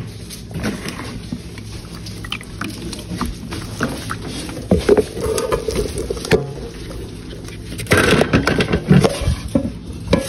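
Kitchen handling sounds at the sink, with light knocks and scraping of a plastic colander and bowl as cooked ground beef is drained, over a steady low hum. The clatter and scraping get louder and busier about eight seconds in.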